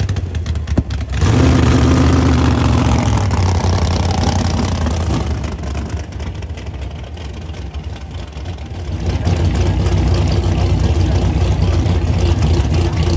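Drag race car engine in a burnout: it comes in suddenly loud about a second in, holds for a few seconds and fades away. From about nine seconds in, a steady engine idle follows.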